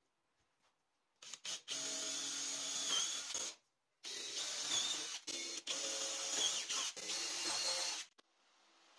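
A small motor running in two bursts, the first about two and a half seconds long and the second about four, with a short pause between them.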